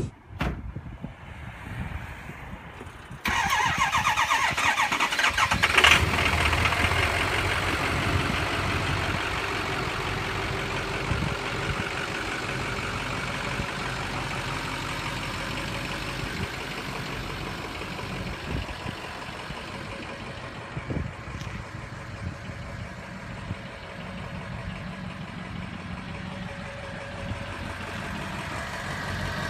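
The 6.0L Power Stroke turbo diesel V8 of a 2006 Ford F-350 Super Duty starts up about three seconds in on a cold start. It then keeps running steadily at idle, growing gradually quieter.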